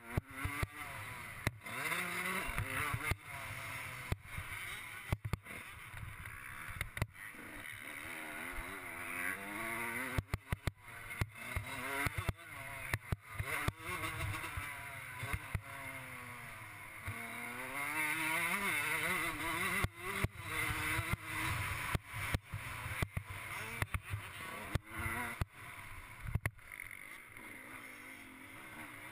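Suzuki RM125 two-stroke motocross engine revving hard and dropping off again and again as the rider accelerates, shifts and brakes around the track, with frequent sharp knocks. Heard from a helmet-mounted camera.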